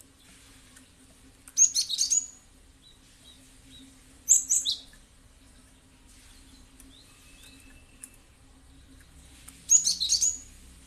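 Gelatik batu (cinereous tit) calling: three short bursts of rapid, high-pitched notes, about two seconds in, near the middle and near the end.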